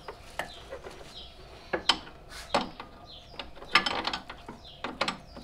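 Hand ratchet wrench clicking in short, irregular runs, with metal clinks, as a suspension bolt is worked tight.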